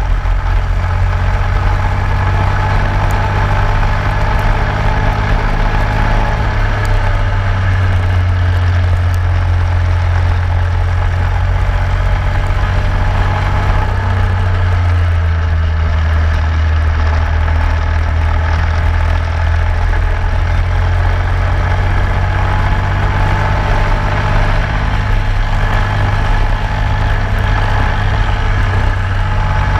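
Racing go-kart engine running at speed, heard onboard, its note holding fairly steady with small rises and dips in pitch.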